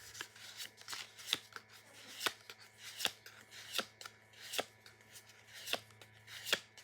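Pokémon trading cards being slid one after another through a hand-held booster pack stack, each card making a short papery swish-and-tap. The strokes come in an even rhythm of roughly one every three-quarters of a second.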